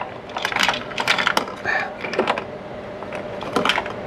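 Irregular clicks and clatter of a portable jump starter's clamps and cables being handled over a car battery, as the black clamp is readied for the negative terminal.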